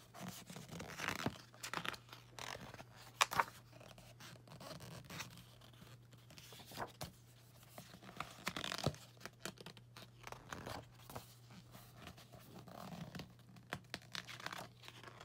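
Glossy pages of a softcover art book being turned and pressed flat by hand: a series of paper swishes, rustles and crinkles, the loudest turns about three seconds and nine seconds in.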